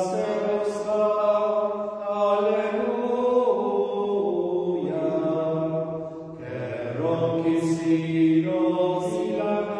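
Slow church hymn sung with long held notes, the closing hymn after the dismissal.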